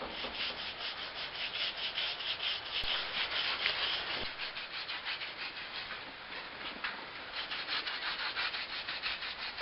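Soapy water being scrubbed over a rubber tire by hand, quick back-and-forth rubbing strokes several times a second, while searching for a leak by its bubbles.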